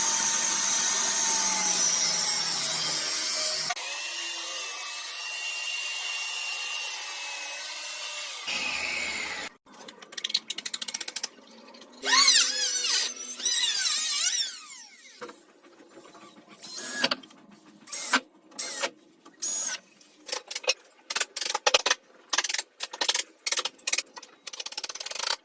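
Woodworking power tools running in a run of short clips: a steady whine for the first few seconds, a second steady tool until about eight seconds in, then repeated short bursts of a power tool starting and stopping, some with the pitch gliding up and down.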